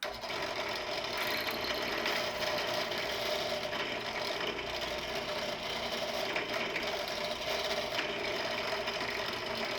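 Drill press running steadily, its bit cutting into a screw to drill the head off.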